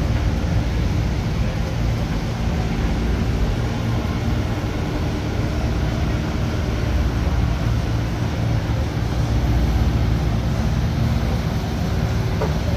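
Steady low rumble of running machinery with a constant hum.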